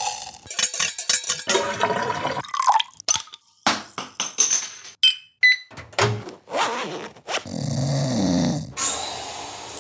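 A rapid run of short, unrelated sound effects cut one after another: a cluster of sharp clicks and knocks, then a few brief high beeps, then a longer, noisier sound with a low wavering pitch lasting about a second and a half.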